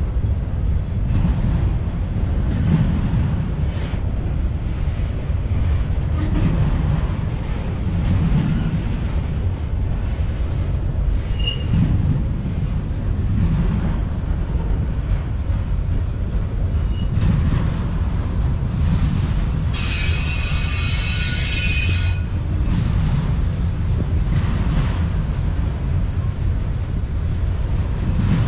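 Freight train of autorack cars rolling past, with a steady low rumble of steel wheels on rail. A few faint short squeaks, then a high-pitched metal wheel squeal lasting about two seconds roughly two-thirds of the way through.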